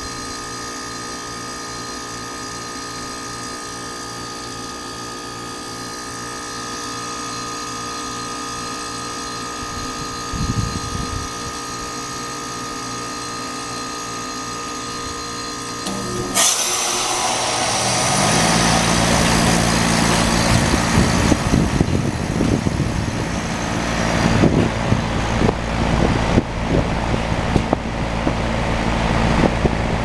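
Goodman heat pump outdoor unit in defrost: the compressor hums steadily with several fixed tones, then about halfway through a sudden loud whoosh of refrigerant as the reversing valve shifts back to heating, ending the defrost. A couple of seconds later the outdoor fan starts, its tones rising as it spins up, then runs with a low rumble and a steady rush of air.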